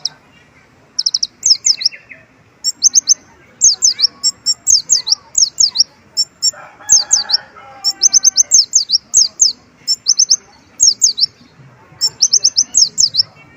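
Little spiderhunter (kolibri ninja) singing in quick bursts of sharp, high, downward-slurred notes, one rapid run after another. Its song is filled with phrases copied from oriental white-eyes.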